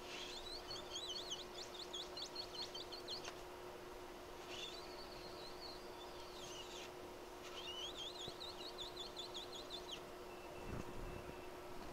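A small bird twittering in three quick, warbling high-pitched phrases, over a steady low hum.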